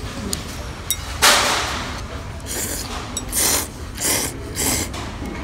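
Chopsticks tossing noodles in a ceramic bowl, with several short hissing bursts. The loudest burst comes about a second in and lasts under a second.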